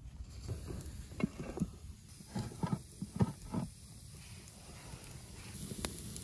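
A run of sharp knocks and clatters of stone and wood, as a flat stone slab is set down on the rocks over a campfire and sticks are pushed in under it; one more sharp click comes near the end.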